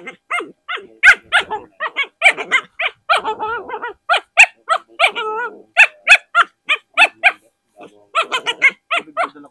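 A dog barking repeatedly and loudly, a quick run of short barks with a few longer, wavering ones among them and a short pause near the end.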